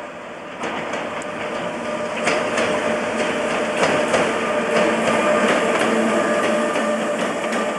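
British Rail Class 87 electric locomotive and its coaches passing at speed, wheels clicking sharply over the rail joints above a steady rushing noise and a hum, getting louder as the train comes by.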